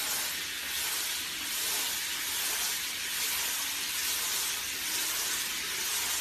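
Handheld hair dryer blowing a steady, airy hiss at close range, drying a dog's wet coat.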